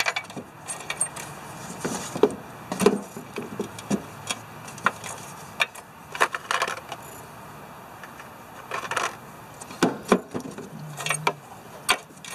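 Small metal screws and parts clinking and rattling as they are picked through by hand, in scattered irregular clicks.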